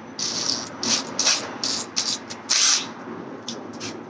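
Drill bit cutting into a Honda K24's aluminium engine block in a series of short, uneven bursts, drilling out a stripped bolt hole to 13/32 inch for a HeliCoil. The loudest burst comes about two and a half seconds in.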